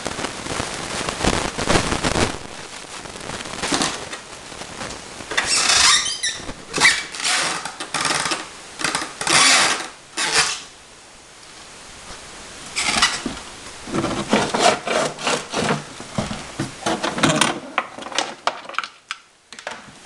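Handling noise from unboxing an RC boat: irregular bursts of rustling and rubbing as the hull and its lift-off canopy are moved about among cardboard and plastic packing, with a quieter pause about halfway through.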